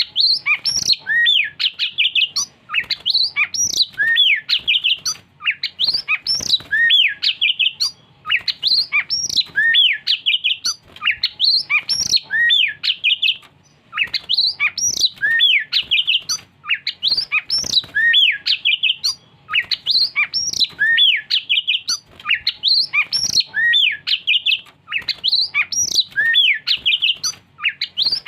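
Oriental magpie-robin (kacer) singing: loud, varied whistled phrases of rising and falling notes, delivered in bouts of a second or two with short pauses between, over and over.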